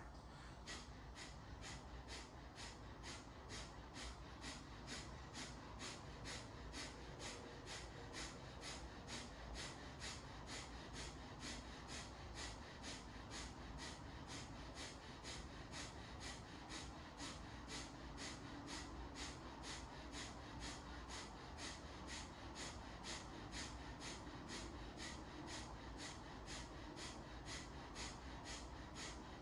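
Kapalabhati (breath of fire) breathing: short, forceful exhalations snapped out through the nose by the abdomen, in a steady rhythm of about two a second.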